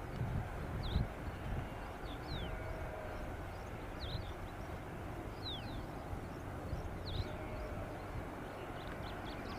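Small birds giving short, high chirps that fall in pitch, repeated every second or two, over a steady low rumble.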